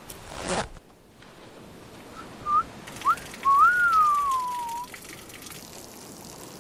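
A man whistling: a few short chirped notes, then one longer note that slides up and slowly falls. About half a second in, a brief rush of noise sweeps from high to low.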